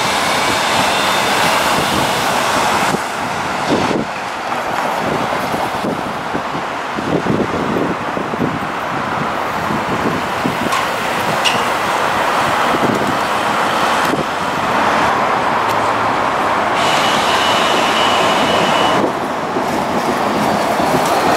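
Busy city street traffic with articulated hybrid city buses moving off and pulling in, a faint rising whine in the first second. The sound changes abruptly several times.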